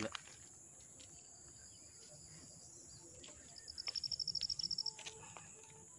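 Faint, steady high chirring of insects such as crickets in roadside scrub. About three and a half seconds in, a fast run of high chirps, roughly ten a second, lasts a little over a second.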